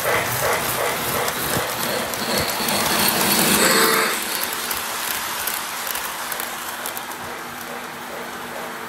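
Lionel model trains running on metal track: a steady rolling rumble that grows louder as a large steam locomotive passes close, about three to four seconds in, then fades as it moves away.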